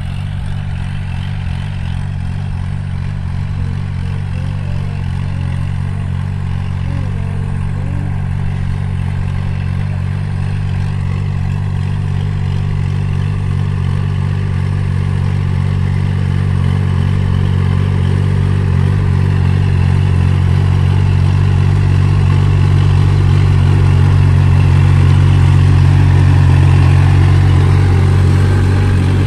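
Kubota tractor's diesel engine running steadily while pulling a rotary tiller through the soil, growing louder as it comes closer and loudest near the end.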